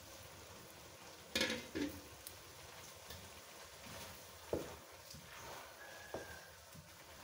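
Grated carrot halwa frying in oil in a wok, with a faint steady sizzle, stirred with a wooden spoon. There are two clattering knocks about a second and a half in, and softer spoon knocks against the pan later on.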